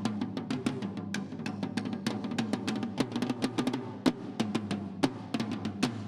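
Snare drums played with wooden sticks in a fast, accented pattern of sharp strikes, several a second, with the drums ringing underneath.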